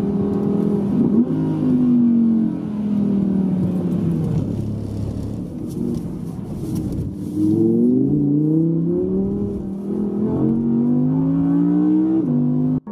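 Sports car engine heard from inside the cabin under hard driving. The revs fall for a couple of seconds, then climb in several rising sweeps, each dropping back before climbing again, and the sound cuts off suddenly near the end.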